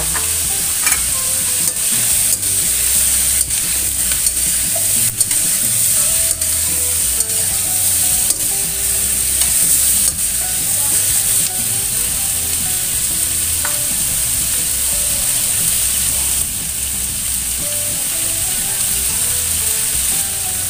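Carrots, tomato, onion and tempeh frying with a steady hiss in a hot stainless steel wok, being stir-fried until the carrots soften. A metal spatula stirs and scrapes, knocking against the wok with irregular sharp clicks about once a second.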